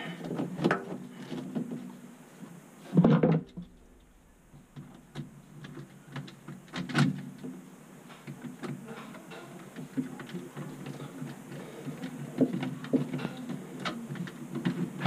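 Scattered clicks, knocks and rubbing as a plastic dishwasher drain hose and a screwdriver are worked at the inlet of a garbage disposal under a sink. There is a louder knock about three seconds in and another about seven seconds in.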